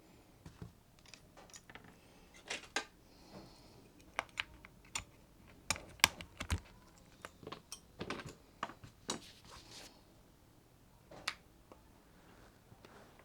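Keys being pressed on a Monsgeek M1 V5 mechanical keyboard: irregular single keystroke clacks with short pauses, the loudest about six seconds in.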